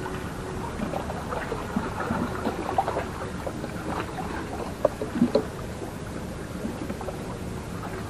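Small rustles and clicks from hands working close to the microphone, with a few sharper clicks about five seconds in, over a steady low background rumble.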